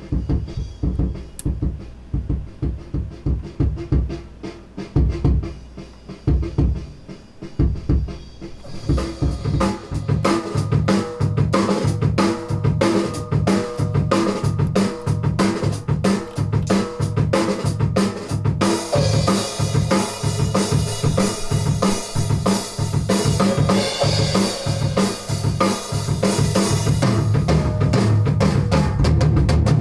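Funk drum kit groove. For the first several seconds mostly kick and low notes are heard; hi-hat and snare strokes come in about nine seconds in, and a bright cymbal wash joins from about nineteen seconds in.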